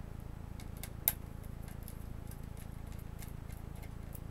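Small screwdriver working the screws out of a Chromebook's heatsink: faint scattered clicks of metal on metal, one sharper click about a second in, over a steady low hum.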